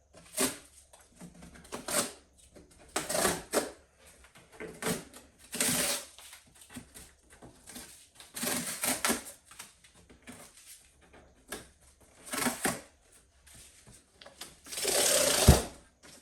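Cardboard and plastic packaging being handled: irregular rustles, scrapes and clicks, with a longer ripping sound near the end as a strip of packaging is pulled off the box.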